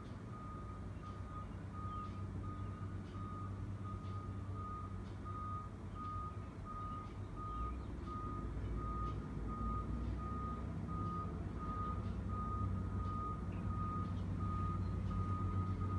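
Construction vehicle's reversing alarm sounding a steady string of short high beeps, a little faster than one per second, over the low running of heavy diesel machinery (an excavator and a flatbed truck), which grows a little louder near the end.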